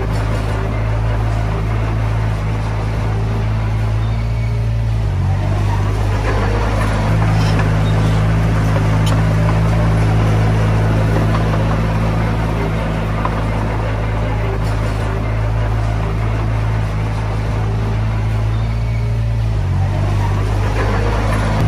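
Komatsu D20P bulldozer's diesel engine running steadily while working. Its note shifts about five seconds in and again near the end.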